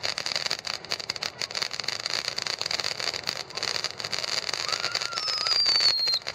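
Ground fountain firework spraying sparks: a dense, rapid crackle over a steady hiss. Near the end a high whistle falls in pitch.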